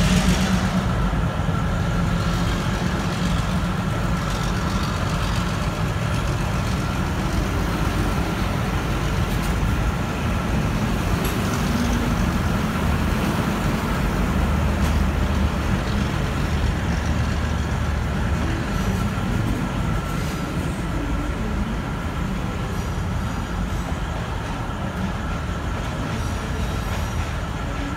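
V/Line Y-class diesel-electric shunting locomotive running while it hauls a rake of passenger carriages: a steady low rumble with a faint steady high whine over it, easing slightly toward the end.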